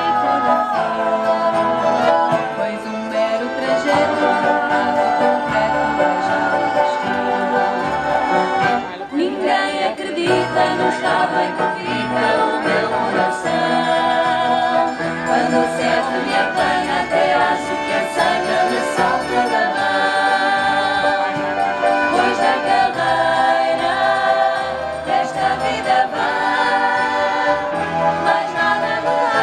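Live performance by a Portuguese folk group: several women singing together over accordion and violin, with guitar and keyboard accompaniment.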